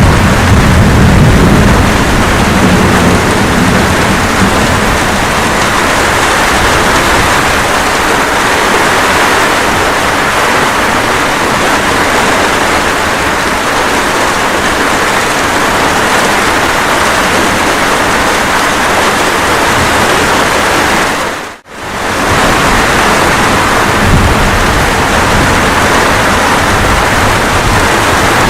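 Steady rain with a low thunder rumble dying away over the first few seconds. The sound cuts out for a split second about three-quarters of the way through, then the rain resumes unchanged.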